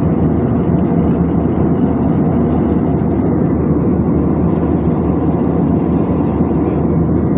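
Steady, loud jet airliner cabin noise in cruise flight: the even rush of the engines and airflow heard from a window seat over the wing.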